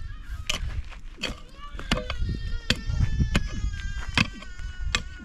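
Pickaxe striking hard, stony ground in a steady digging rhythm, about seven blows, one every three-quarters of a second. Over the middle a high, drawn-out wavering call carries in the background.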